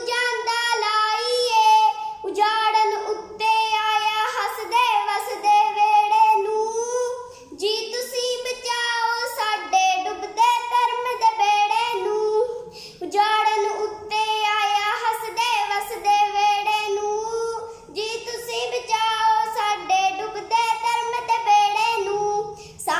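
A young girl singing solo and unaccompanied, in phrases of about five seconds with brief pauses for breath between them.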